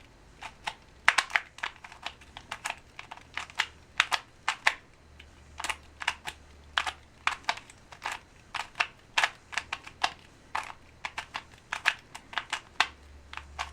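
Rubik's stickerless 2x2x2 pocket cube being turned by hand: a run of quick, irregular plastic clicks as its layers rotate, several a second with short pauses. The turning goes fairly smoothly but the cube is no speed cube.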